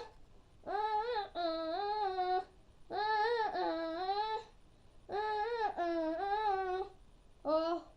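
A child singing alone with no accompaniment, in five sustained phrases with vibrato, possibly wordless or humming, in a small room. The last phrase is short, near the end.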